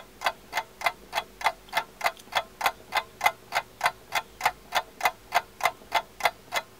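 Steady, rapid mechanical ticking, about three ticks a second, with the ticks alternating slightly in strength like a tick-tock.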